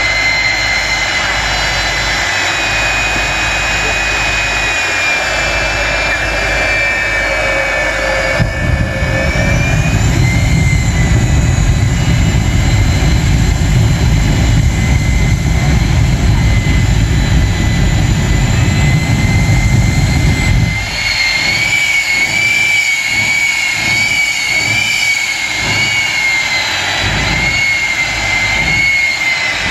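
Jet-powered semi truck's turbine engine running with a steady high whine. About eight seconds in, a deep rumbling blast joins it and lasts about twelve seconds, the afterburner lit as the truck shoots flames. Then the whine wavers up and down in pitch with repeated low pulses, as the jet is revved in short bursts.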